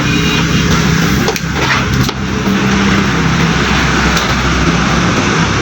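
A machine running steadily with a low hum and a broad hiss, with a couple of short clicks about a second and a half and two seconds in.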